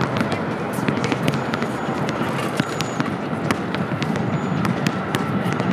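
Basketball being shot and bouncing on an outdoor asphalt court, over a steady outdoor hum and hiss. Many sharp, irregular clicks and taps run through it.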